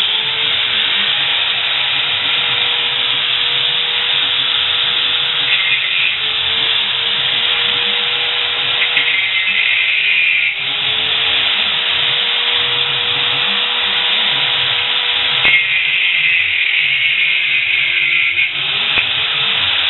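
Angle grinder running hard against a steel bicycle frame. Its motor whine drops under load and picks back up about three times as the disc bites into the metal.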